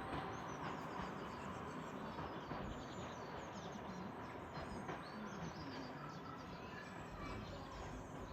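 Birds chirping and singing, many short high chirps over a steady faint background noise.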